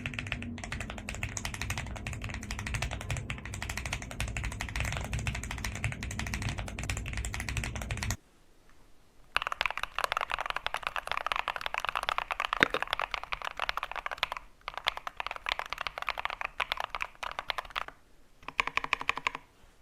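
Typing on a mechanical keyboard fitted with PBT dye-sublimated keycaps: several runs of fast, dense key clacks, broken by short pauses.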